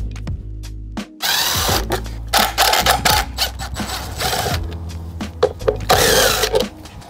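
Yellow cordless drill with a socket extension spinning out timing-belt cover bolts in four short bursts, over background music.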